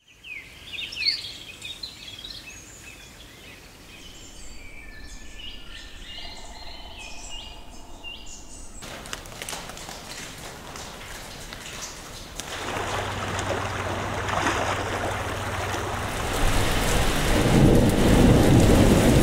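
Nature ambience recordings. For about the first nine seconds small birds chirp and call, then a sudden cut brings a steady hiss that grows louder, ending in heavy rain with a low rumble of thunder.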